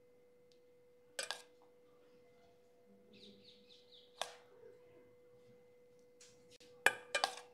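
A metal spoon clinking against a steel bowl while grated cheese is sprinkled: once about a second in, again around four seconds, and a quick run of three clinks near the end. A faint steady tone runs underneath.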